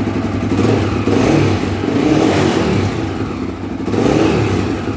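Honda CBX 250 Twister's single-cylinder four-stroke engine revving through a new Roncar original-style replacement muffler, swelling up and easing off a few times. Its exhaust note sounds almost like a sport pipe.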